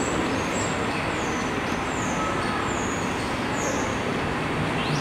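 Steady hum and hiss of an R142A subway train standing at an elevated station, mixed with street traffic noise, with faint high falling chirps now and then.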